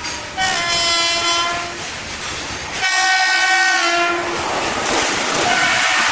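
WAP-7 electric locomotive's horn sounding two long blasts, each about a second and a half, as the train runs through at speed. After about four seconds the horn gives way to the rushing clatter of the train passing.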